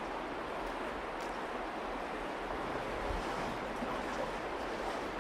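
Virgin River running steadily over rocks in a narrow sandstone canyon, a continuous rush of moving water.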